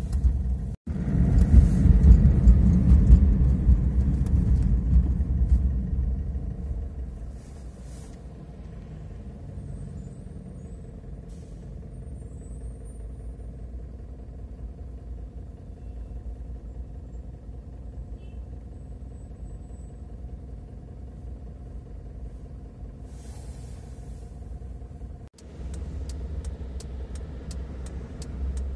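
Car interior sound while driving in city traffic: a low engine and road rumble, loud for the first several seconds, then settling to a quieter steady hum. It cuts out briefly twice, and after the second gap the rumble is louder again, with a quick regular ticking of about three ticks a second near the end.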